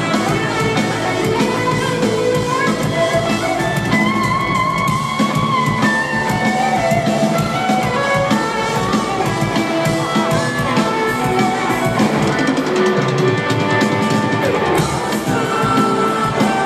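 Three-piece rock band playing live: electric guitar lead lines with held and bending notes over bass guitar and a drum kit, in an instrumental passage without singing.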